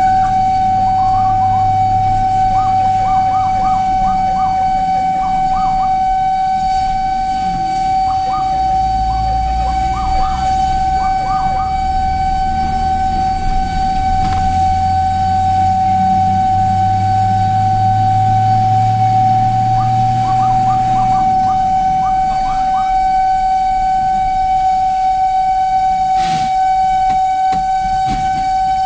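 Fire engine siren sounding one steady, unbroken high tone, heard from inside the cab, with bursts of short rapid chirps over it three times. Underneath, the truck's engine climbs in pitch through the middle as it gathers speed, then eases off; a single sharp knock comes near the end.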